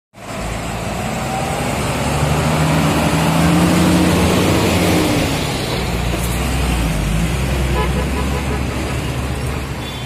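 Heavy diesel truck engines running, a steady low rumble with an engine note that swells to its loudest about four seconds in and then eases off.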